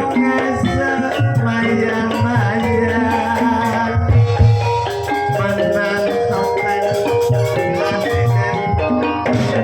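Javanese gamelan playing a Banyumasan gending: struck mallet-percussion melodies over a steady drum beat, with rattling percussion.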